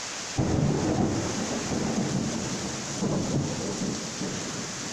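Heavy rain from Cyclone Yaas hissing steadily. About half a second in, a sudden loud, low, rough rumble joins it and rises and falls in gusts: strong cyclone wind buffeting the microphone.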